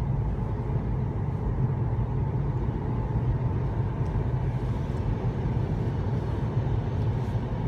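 Steady low rumble of a car in motion, heard from inside the cabin: engine and tyre noise on the road.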